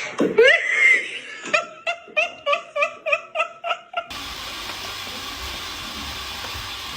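High-pitched, rhythmic laughter: a rising call, then a quick run of about nine 'ha' pulses at roughly three or four a second. It cuts off abruptly a little past the middle, leaving a steady background hiss with a low rumble.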